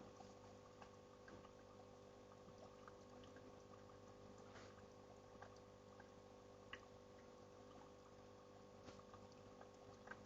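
Faint water sound of a waterfall, with scattered small drips and clicks over a steady low hum.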